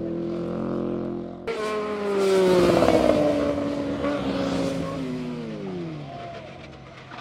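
A motorcycle engine runs at a steady note, then about a second and a half in it changes abruptly to a sportbike riding past at speed: its engine is loudest a second or two later, then falls in pitch and fades away as the bike goes by.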